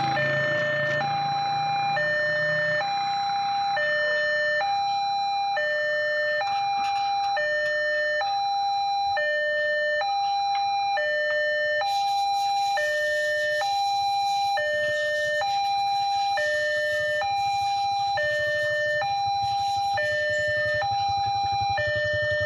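Railroad level crossing's electronic warning alarm sounding two alternating tones, high then low, each held just under a second and repeating steadily: the signal that a train is approaching and the barriers are closing.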